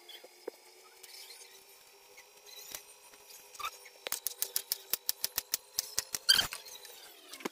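Kitchen knife slicing a cucumber on a plastic cutting board: a quick run of chops, about six a second, starting about halfway through. A faint steady hum sits underneath and drops in pitch near the end.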